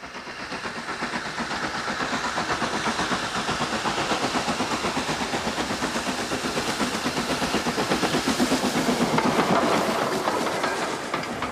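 Steam locomotive approaching under steam, its exhaust chuffing in rapid, even beats over a steady hiss. It grows louder as it nears and eases off a little near the end.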